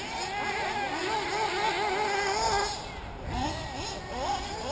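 Nitro engines of 1/8-scale RC off-road buggies whining, their pitch wavering up and down as the cars throttle and brake through the corners. They ease off about three seconds in, then a rising rev comes near the end.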